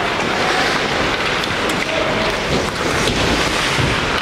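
Steady, loud noise of an ice hockey rink during play, with a low rumble growing in the last second or so.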